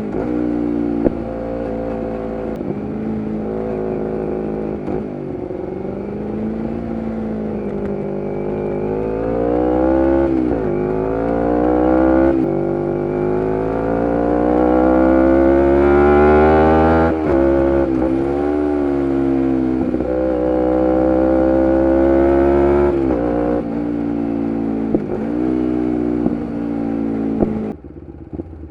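A 2011 Kawasaki Ninja 250R's parallel-twin engine, breathing through a full Graves race exhaust, pulls the bike along. Its note climbs as it accelerates and drops sharply at each gear change, with a few sharp pops along the way. Near the end the throttle closes and the sound falls to a lower, quieter note.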